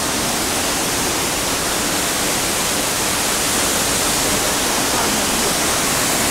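Waterfall and a fast, swollen mountain river rushing over rocks: a loud, steady, even rush of water.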